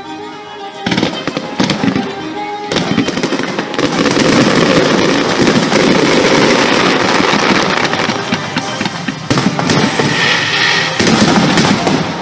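Fireworks display: a rapid barrage of bursts and crackling, growing into a dense continuous volley from about three seconds in, with music playing alongside.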